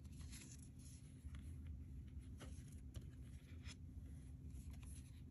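Faint handling of tarot cards on a cloth: a few soft brushing slides and light ticks as a card is laid down, over a low steady hum.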